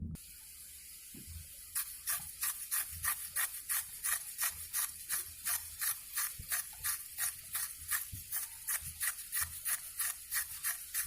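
Sickle blade worked in quick, evenly spaced scraping strokes, about three a second, starting about two seconds in.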